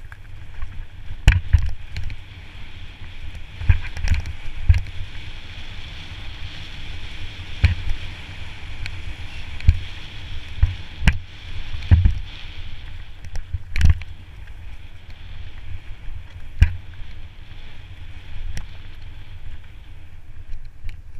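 Mountain bike rolling fast over a leaf-covered dirt trail: tyres rumbling and hissing through dry leaves, with a dozen or so sharp knocks and rattles as the bike hits roots and bumps.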